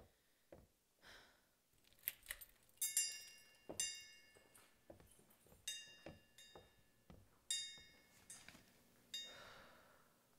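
Three bright ringing strikes, each sudden and dying away over about a second, with soft knocks and taps around them and a faint hiss swelling near the end.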